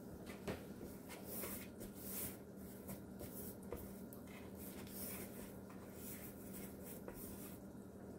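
Fingers smearing vegetable shortening over the inside of a metal baking pan: faint, repeated rubbing and scraping strokes.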